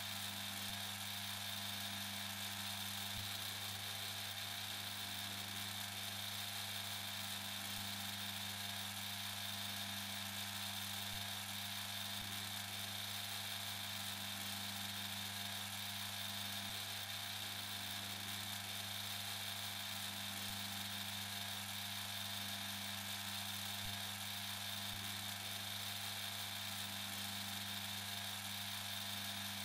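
Lathe running at a steady speed: a constant whirring hum with a high whine on top, unchanged while the spinning workpiece is drilled, trimmed and sanded.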